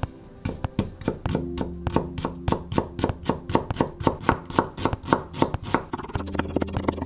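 Kitchen knife cutting through stacked daikon radish slices onto a wooden cutting board, julienning them into thin strips: a quick, even run of knife strokes, about four or five a second, starting about half a second in.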